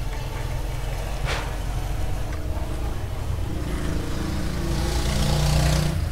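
A motor vehicle's engine running close by over a steady low rumble, growing louder about three and a half seconds in and loudest near the end.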